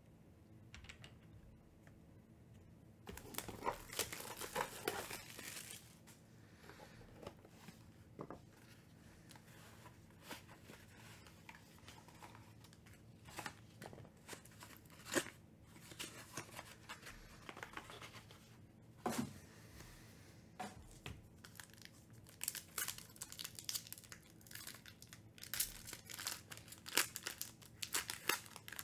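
Hands handling trading-card packaging and tearing open a foil card pack: crinkling and tearing rustles with scattered clicks. There is a dense burst about three seconds in, and the crinkling is densest near the end as the foil wrapper is torn.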